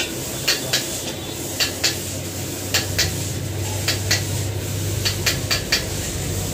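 Metal spatula striking a wok as chowmein is stir-fried: sharp clinks in a steady rhythm, in pairs about once a second, over a steady low hum.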